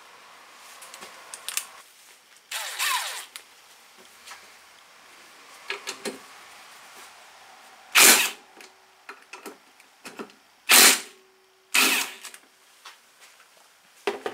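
A cordless power driver run in short bursts, about five times, backing out the bolts of a diesel fuel filter bracket. Light metallic clicks of parts being handled come between the bursts.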